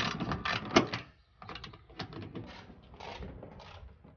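Socket ratchet wrench clicking as a rusted bolt holding the stock rear spoiler to the trunk lid is worked loose. The clicks come fast and loud in the first second, then lighter at about three a second.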